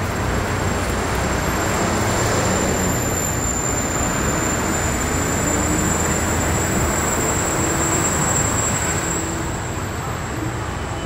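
City street traffic: a steady wash of passing cars and other vehicles, with a thin, steady high whine above it.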